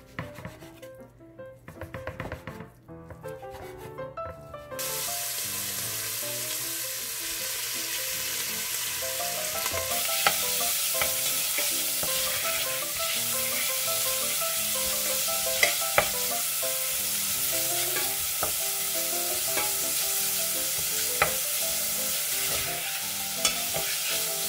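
Sliced beef sizzling as it fries in oil in a stainless steel pot, stirred with a wooden spatula that clicks against the pot now and then; the sizzle starts suddenly about five seconds in. Before that, a knife cutting beef on a wooden chopping board.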